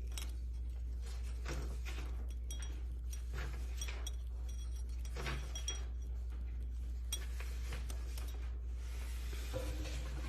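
Faint scattered clicks, taps and light clinks of a glass lightbulb and small metal parts being handled during soldering, over a steady low hum.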